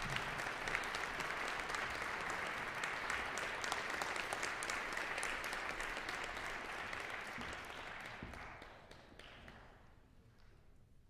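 Audience applauding, the clapping dying away about nine seconds in.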